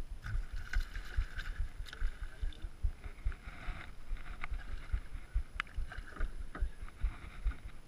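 Wind buffeting the microphone in uneven low thumps over water splashing and lapping at the side of a small boat, with a few sharp clicks.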